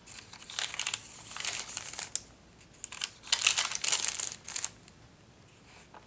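Paper pages of a handmade journal being handled and turned, the paper rustling and crinkling in two spells, the second louder and stopping a little before the end.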